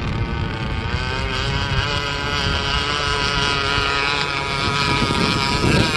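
26cc Zenoah two-stroke gasoline engine of a 1/8-scale RC hydroplane running at speed, a steady high-pitched drone whose pitch climbs a little about a second in and then holds. Wind buffets the microphone.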